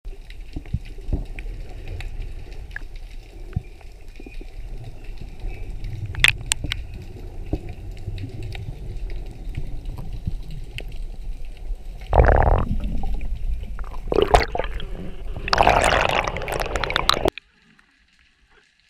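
Underwater sound picked up by a camera in its waterproof housing: a steady, muffled low rumble of water with scattered clicks and ticks. About twelve seconds in and again for a few seconds after fourteen, louder rushing bursts of water noise break in, and then the sound cuts off abruptly to near silence.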